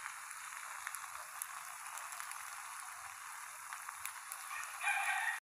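Chicken macaroni with ketchup sizzling in a frying pan: a steady frying hiss with scattered small pops and crackles. Near the end there is a brief pitched sound, then the sound cuts off suddenly.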